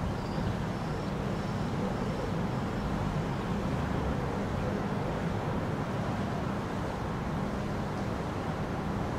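Steady city road-traffic noise, a low even rumble of passing vehicles, with a few faint high chirps in the first couple of seconds.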